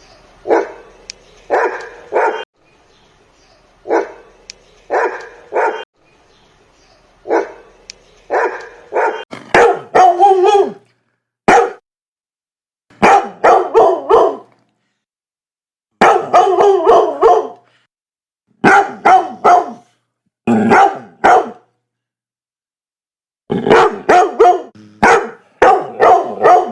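Dogs barking, single barks and quick runs of several, with pauses between the groups. The first barks are quieter over a faint background hiss; from about nine seconds in they are louder and closer together.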